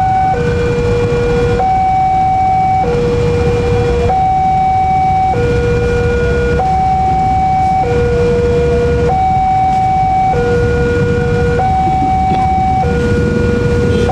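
Railroad level-crossing warning alarm: an electronic two-tone signal alternating steadily between a higher and a lower note, each held a little over a second, sounding while the crossing is closed for a train. Under it runs a steady low rumble of engines.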